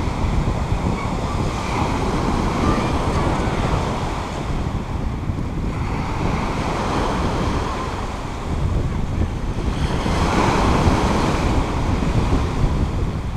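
Surf breaking and washing over a pebble beach, swelling a couple of seconds in and again about ten seconds in. Wind buffets the microphone throughout, adding a heavy rumble.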